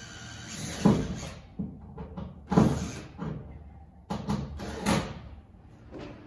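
Wooden knocks, bumps and scrapes in three bunches, the loudest about a second in and near the middle, as plywood and woodwork are handled inside a fibreglass boat hull.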